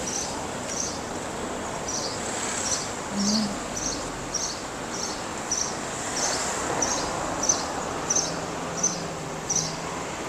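Short high-pitched chirps repeating about twice a second, over a steady background of street noise.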